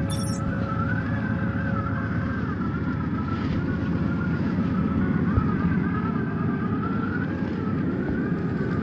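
Traxxas TRX-4 RC crawler's electric motor and geared drivetrain whining as it churns through snow. The whine wavers up and down in pitch with the throttle over a steady low rumble.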